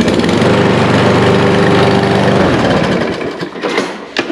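Gasoline lawn mower engine starting on its newly fitted recoil starter rope and running at a steady speed. After about two and a half seconds it falters and weakens, then runs strongly again at the very end.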